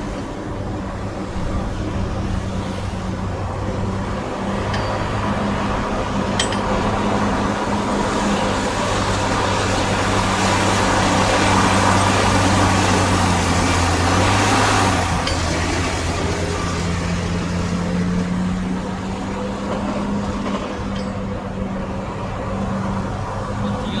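Heavy diesel engine of earth-moving equipment running steadily. A broad rushing noise builds up partway through, loudest around twelve seconds in, and falls away suddenly about fifteen seconds in.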